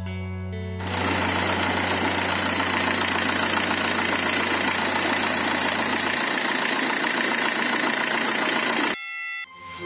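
Peugeot 406 diesel engine running steadily at idle, with a dense clatter, after its injection pump has been replaced. It cuts off sharply near the end.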